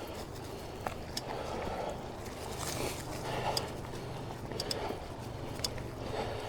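Mountain bike riding along a dirt trail: steady tyre and ride noise, with a handful of sharp clicks and rattles from the bike over bumps.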